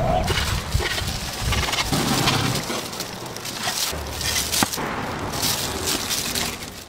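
Dense crackling and crunching with scattered sharp clicks and one sharp knock about four and a half seconds in: roasted crocodile meat with crisp skin being handled and chopped with a cleaver.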